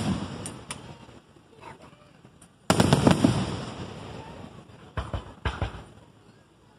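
Aerial fireworks shells bursting: the fading rumble of one burst, then a loud boom about three seconds in that crackles away over a couple of seconds, and two or three sharper bangs about two seconds later.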